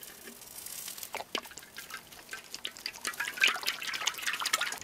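Cooking oil being poured into a hot metal wok over a wood fire, with scattered crackles that build up about three seconds in.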